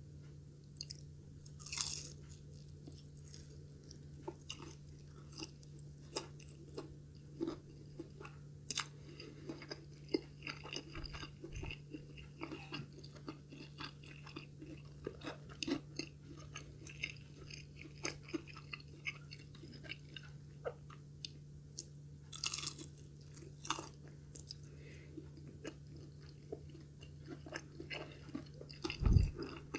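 Close-up chewing of crispy breaded fried katsu, with many small crunches and louder crunchy bites a couple of seconds in and again about 22 seconds in. A low steady hum runs underneath, and a dull thump comes near the end.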